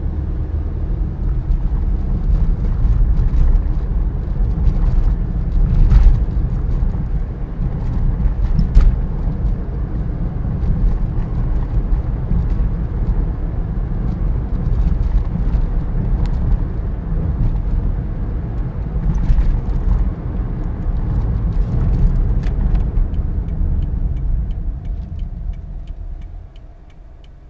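Toyota Passo driving on a rough road: steady low tyre and road rumble with a few sharp knocks from bumps, dying away near the end as the car slows.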